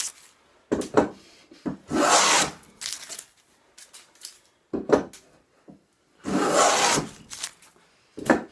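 Wooden tongue-and-groove plane cutting a tongue along a board edge: two long shaving strokes about four seconds apart. Sharp wooden knocks come between them as the plane is lifted and set back on the board.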